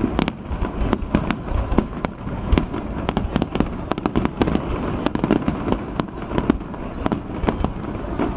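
Fireworks display going off: a rapid, irregular run of sharp bangs and crackles, several a second, over a continuous low rumble.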